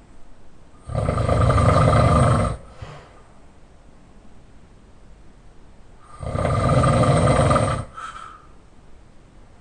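Loud open-mouth snoring by a person sleeping on his back: two long snores about five seconds apart, each followed by a short, fainter sound.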